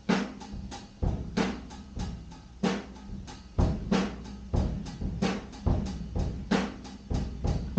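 Drum kit played in a steady, slow beat, bass drum and snare hits alternating about twice a second.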